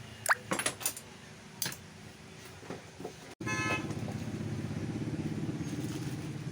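A few sharp clicks and knocks, then a steady low mechanical buzz that starts abruptly a little past the middle.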